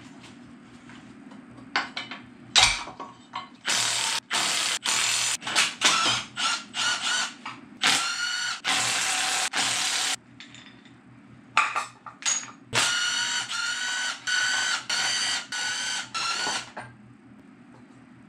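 Cordless power ratchet running in a string of short bursts, a steady motor whine each time, spinning out the water pump bolts on an LS engine. A few metal clunks come before the first bursts.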